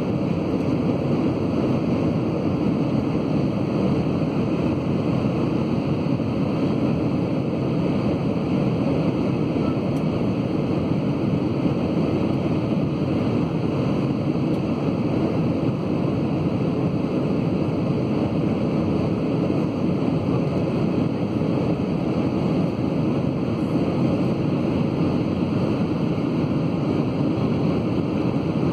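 Steady cabin noise inside an Airbus A320 on descent: the even rumble of the engines and the airflow past the fuselage, with no change in pitch or level.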